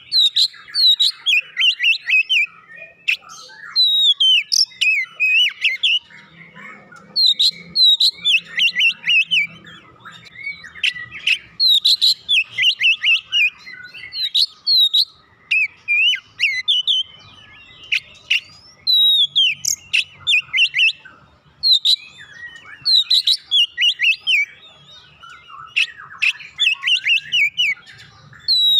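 Oriental magpie-robin (kacer) in full song: loud runs of quick, varied whistles and chirps, in phrases a few seconds long with short pauses between them.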